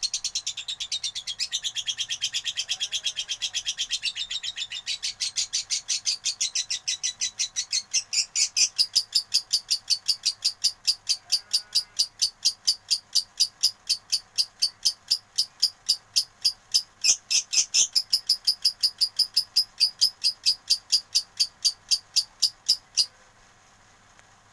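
Lovebird singing a long unbroken run of sharp, high, rapid chirps, about four a second, growing louder partway through and stopping abruptly near the end: the long chattering song that Indonesian lovebird keepers call ngekek.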